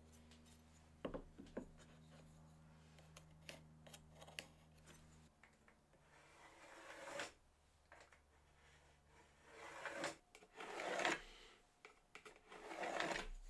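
Faint scratching of a pencil drawn along a metal straightedge on a wooden board, marking lines: a few separate strokes, the longest about 7 s in and near the end. Before them come light clicks and taps as the straightedge and board are handled.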